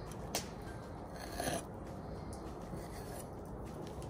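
Chef's knife cutting and scraping against a wooden cutting board while trimming fat from a beef steak: a light tap about a third of a second in, then a short scrape around a second and a half, over steady low background noise.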